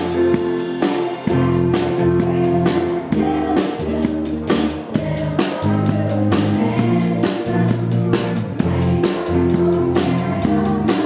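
Live band playing with electric guitar, bass guitar, keyboard and a drum kit keeping a steady beat.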